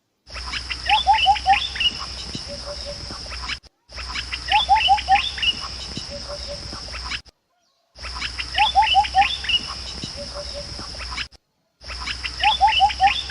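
A bird call of four quick falling chirps, repeated the same way four times about every four seconds, with short dead-silent breaks between repeats like a looped recording, over a steady high hiss.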